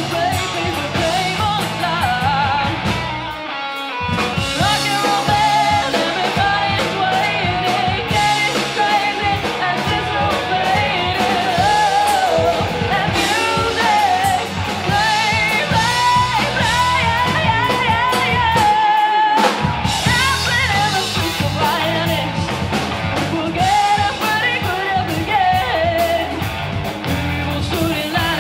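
Live rock band playing: a female lead vocalist singing over electric guitars and a drum kit. The bass and drums drop out briefly twice, about four seconds in and again about nineteen seconds in.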